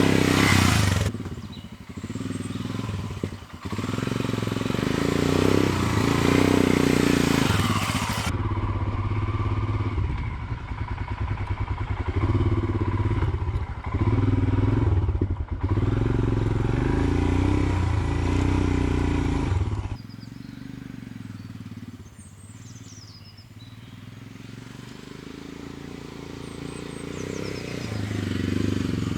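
Royal Enfield Himalayan's single-cylinder engine running on a dirt track, revs rising and falling with the throttle. It drops to a much quieter, lower running level for several seconds in the latter part before picking up again near the end.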